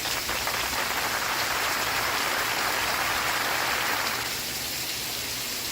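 Steady rain falling, a continuous hiss of drops, with a brighter, louder rush that swells in about half a second in and fades away about four seconds in.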